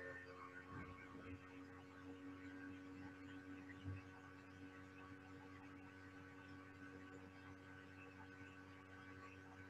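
Near silence: a faint steady electrical hum in the recording, with one soft bump about four seconds in.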